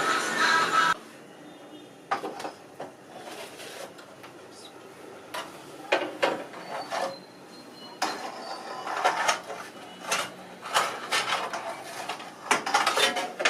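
Irregular clinks, knocks and clatter of metal kitchenware being handled. Background music cuts off about a second in.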